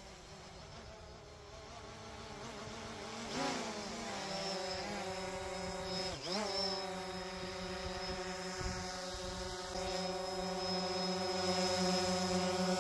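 DJI Phantom 4 quadcopter's propellers buzzing as it comes down and hovers near the microphone, growing steadily louder. Twice, about a quarter and half way through, the pitch dips and swings back as the motors change speed.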